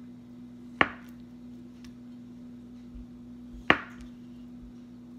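Kitchen knife slicing through a block of firm tofu and knocking against a bamboo cutting board: two sharp knocks, about three seconds apart.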